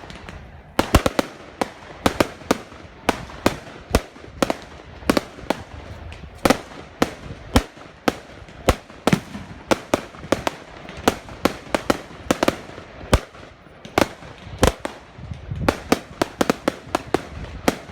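Fireworks going off in a rapid, irregular string of sharp bangs, two to three a second, with brief gaps between volleys.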